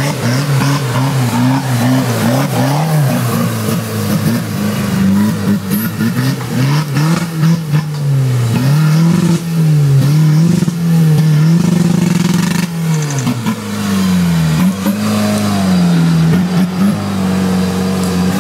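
Modified Suzuki Samurai off-roader's engine revving up and down again and again under load as it climbs a steep, rough slope.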